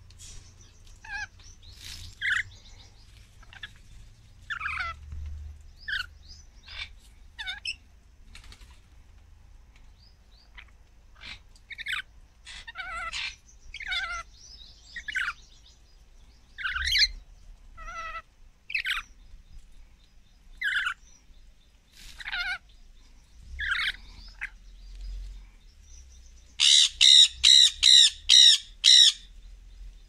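Rainbow lorikeets calling: short chirps and squawks, one at a time every second or so, then near the end a quick run of about six loud calls in a row.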